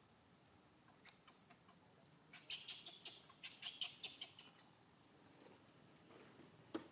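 Baby macaque giving a quick run of short, high-pitched squeaking cries, about two to four seconds in, with a single faint click before and another near the end.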